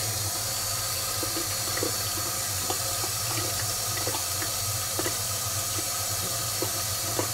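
Gillette Fusion ProGlide Power cartridge razor, its vibration switched off, shaving stubble in short strokes heard as faint irregular scratchy ticks. Under it a steady rushing hiss like a running tap.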